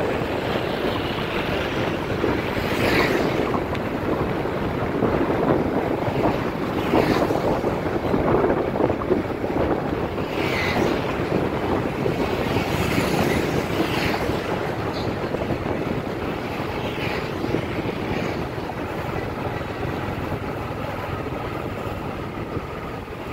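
Wind buffeting the microphone and road noise on a moving motorbike, a steady rush that swells and eases every second or two, with traffic mixed in.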